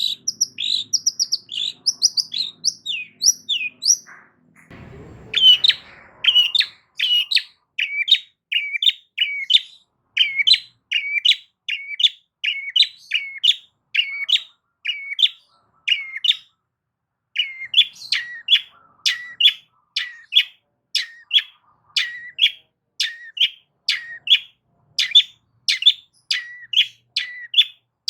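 Long-tailed shrike (cendet) singing a long series of short, loud, down-slurred chirps, about two to three a second, quicker and higher-pitched in the first few seconds. A brief low rustle or thump sounds about five seconds in, and the song pauses for about a second near two-thirds of the way through.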